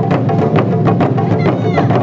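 Music driven by fast, even percussion strikes, about eight a second, over steady sustained tones, with a short sliding high tone about one and a half seconds in.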